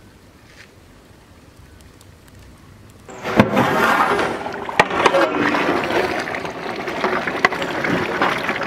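Quiet for about three seconds, then a sudden metal clatter as the lid comes off a large aluminium cooking pot. This is followed by the sloshing and bubbling of mutton masala gravy boiling in water while a long metal ladle stirs it, with a few sharp knocks of the ladle against the pot.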